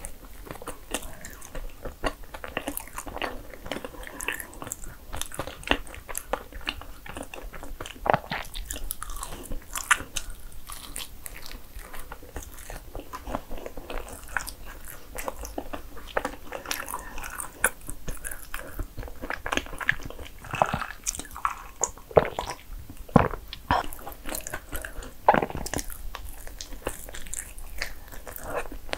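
Close-miked biting and chewing of a soft, cream-filled bagel sandwich: wet mouth sounds with many small, irregular clicks and smacks.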